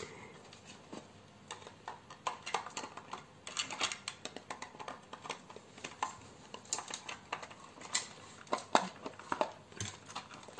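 Irregular light clicks and knocks from hands handling a toy RC off-road car's plastic chassis, battery and battery cover. The car's motor is not running.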